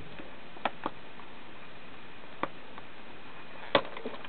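Hard plastic clamshell packaging being handled and pried at its sealing sticker: four sharp plastic clicks, spaced irregularly, the loudest near the end.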